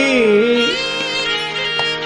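Indian devotional music: a melodic line that glides between held notes, over a steady drone.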